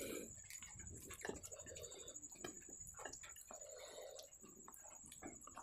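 Faint close-up eating sounds: chewing and mouth clicks while naan is torn and scooped through curry by hand, in many small, irregular clicks and soft squishes.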